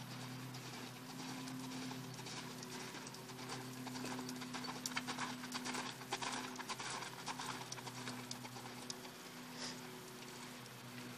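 Hoofbeats of a Paint mare loping on arena sand, a quick run of soft thuds that grows loudest about halfway through as she passes close by.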